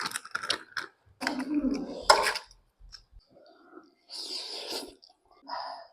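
Someone eating ramen noodles: slurping and chewing in a few short bursts with pauses between.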